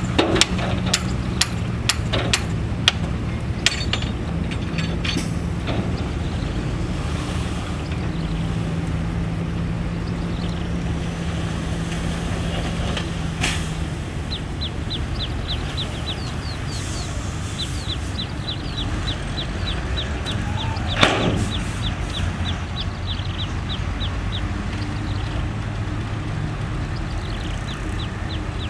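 Heavy diesel engine of earthmoving equipment running steadily. Sharp metallic knocks come in the first few seconds, and a fast light ticking starts about halfway through.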